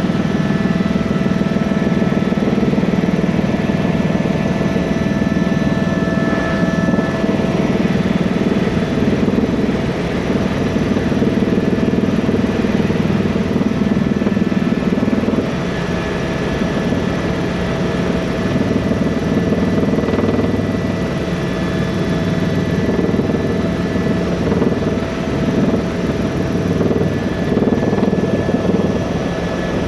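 Helicopter running: a steady rotor and turbine noise with a low beating and a few faint, steady whines above it.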